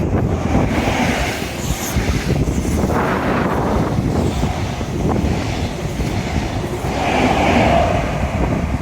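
Strong wind buffeting the microphone in gusts, with waves washing against the seawall.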